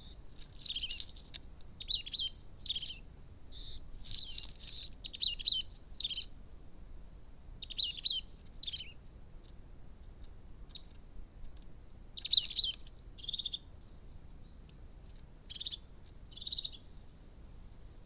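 Small songbird calling in about six short bouts of quick, high chirps, some with sharp downward sweeps, with pauses between the bouts.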